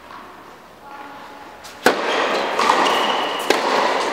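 A tennis racket strikes the ball on a serve about two seconds in, a single sharp crack. It is followed by tennis shoes scuffing and squeaking on the hard indoor court as the server runs in, and by a second ball impact.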